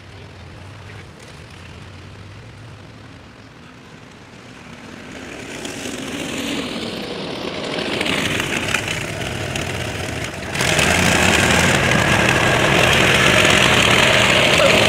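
Four-cylinder engine of a homemade Model T Ford tractor running under load as it pulls a plow, growing louder as it approaches, with a sudden jump in loudness about ten and a half seconds in.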